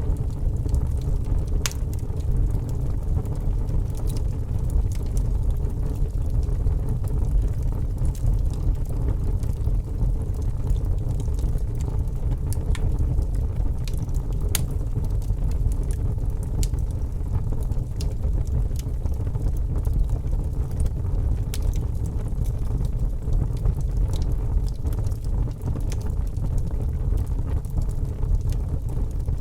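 Wood fire in a fireplace crackling, with sharp pops scattered every second or two over a steady low rumble.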